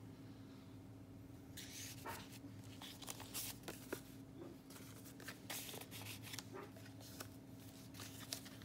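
Soft paper rustling and light handling as pages and paper tags of a handmade junk journal are turned, slid out and held, with scattered short crinkles and ticks. A faint steady hum runs underneath.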